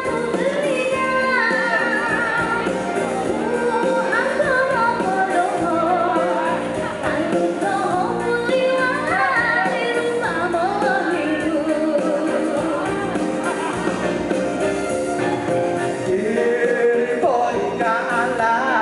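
Live pop duet: a woman and a man singing into microphones over amplified backing music.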